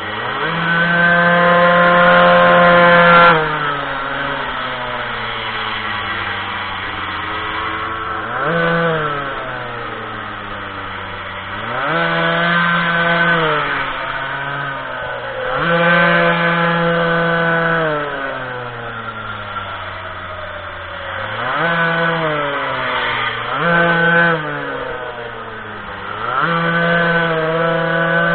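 Minimoto's small two-stroke engine revving, climbing to a high buzz about seven times and dropping back between climbs as the throttle is opened and closed. The first and longest climb comes straight away, and a shorter pair of revs comes close together past the two-thirds mark.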